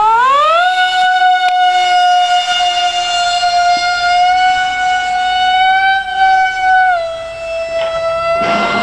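Brushless electric motor of an RC combat flying wing spinning a 6x4 propeller: a whine that rises in pitch as the motor spools up, then holds a steady high pitch, dipping slightly about seven seconds in. A rushing noise joins near the end.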